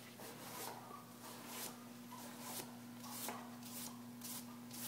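Sandpaper rubbed by hand over dark raw denim jeans in quick, scratchy strokes, about two to three a second, sanding in the shadow and whiskering wear of a vintage wash. A steady low hum runs underneath.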